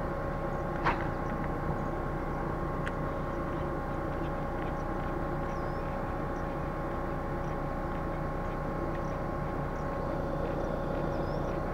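A steady hum from a distant motor running at an even pitch throughout. There is a faint click about a second in, another a few seconds later, and a few faint high bird chirps.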